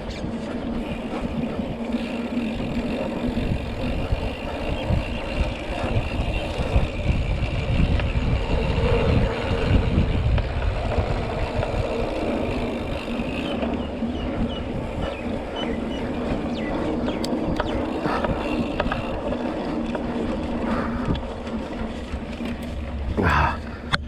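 Mountain bike ride on a dirt trail: wind rushing over the microphone and tyres rumbling over the ground. A short tone sweeps up and down near the end.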